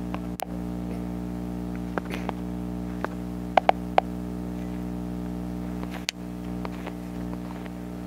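A steady electrical hum with a few sharp clicks, the loudest three close together about three and a half seconds in. The sound cuts out briefly twice, near the start and about six seconds in.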